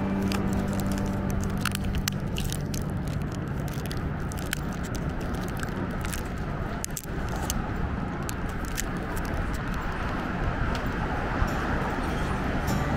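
City street ambience: steady traffic noise with many scattered sharp clicks.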